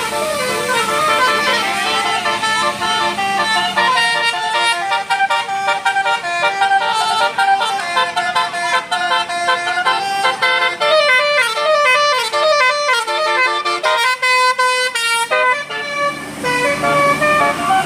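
Telolet Basuri multi-tone bus air horn playing a melody of short notes in quick succession, with a very fast run of notes about three-quarters of the way through.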